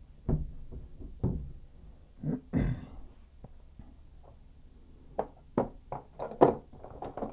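Knocks and clunks of hands and a tool working on a shower valve and its copper pipes through an access hole in a tub surround: four heavy knocks in the first three seconds, then a quick run of lighter clicks and taps.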